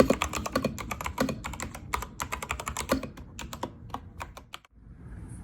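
Fast typing test on a BOYI 68-key compact mechanical keyboard: a rapid, irregular run of key clacks. The clacks stop suddenly about four and a half seconds in, leaving a faint steady hiss.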